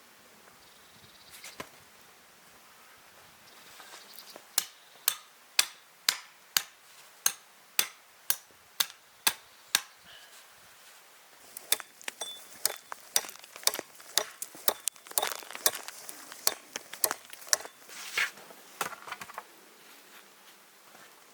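Repeated sharp knocks, about two a second for several seconds, then a quicker, irregular run of knocks and scraping strikes.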